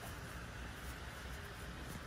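Faint, steady background noise with a low hum and no distinct event.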